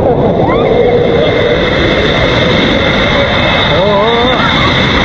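Wave-pool water splashing and rushing loudly close to the microphone, over the steady din of a crowded pool hall. A voice cries out with a wavering pitch about four seconds in.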